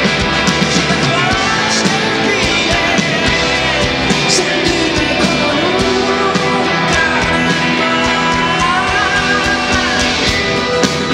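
Live rock band playing loudly: electric guitars, bass guitar and a drum kit, with a voice singing over them.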